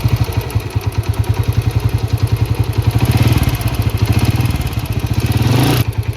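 Honda motorcycle engine idling with a rapid, even beat, the 'tak tak' engine ticking noise being treated as a fault. The beat breaks off briefly near the end.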